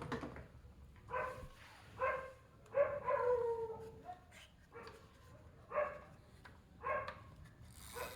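A dog barking about six times, roughly a second apart. Some barks are short and some are drawn out, falling in pitch.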